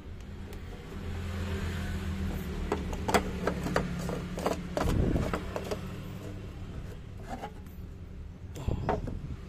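Scattered clicks and light knocks of blender parts being handled, with a dull thump about five seconds in, over a steady low hum.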